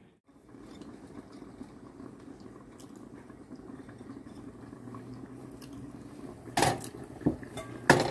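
Metal cooking utensil knocking against a pot: one loud clank about six and a half seconds in, then a few quicker clinks near the end, over a low steady hum.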